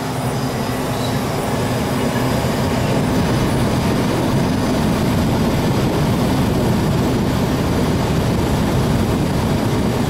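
Air conditioner's indoor air handler blower running, a steady rushing rumble of air that grows a little louder over the first few seconds and then holds even.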